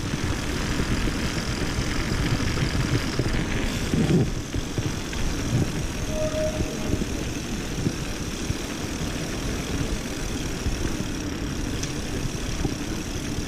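Mountain bike being ridden on a trail: wind on the action-camera microphone and tyre rolling noise, a steady rumbling hiss.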